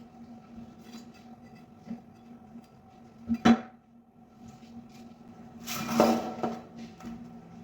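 Kitchen clatter of dishes and utensils being handled: a sharp double knock about three and a half seconds in, then a longer rattle around six seconds in, over a steady hum.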